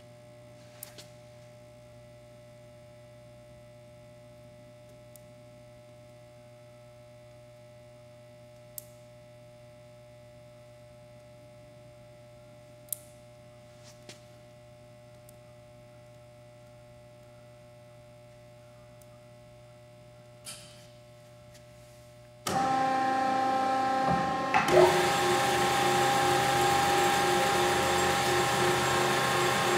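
Hyd-Mech S20A automatic bandsaw: a low steady hum with a few faint clicks as its control-panel buttons are pressed, then about three quarters of the way through the saw starts up abruptly and runs much louder with a steady mechanical whirr, its sound shifting a couple of seconds after it starts.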